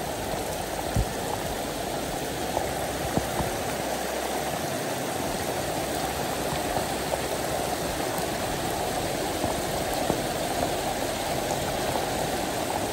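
Steady rushing of water flowing in a stream, with rain falling.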